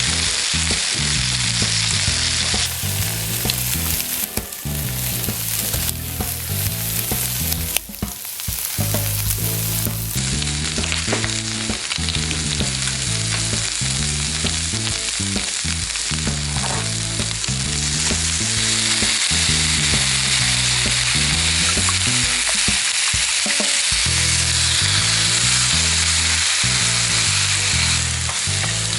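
Food frying in a pan, a steady, loud sizzle, with background music underneath.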